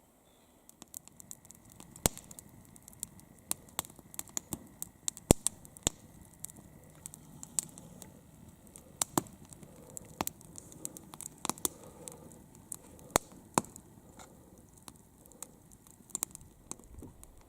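Wood campfire crackling, with irregular sharp pops over a soft low hiss.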